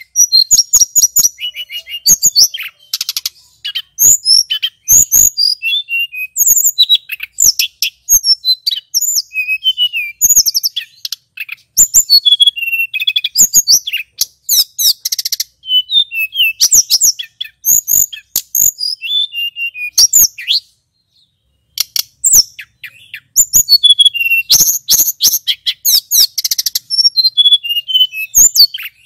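Male blue flycatcher (tledekan gunung) singing a fast, varied song of high whistled notes and quick trills, with a brief pause about two-thirds of the way through.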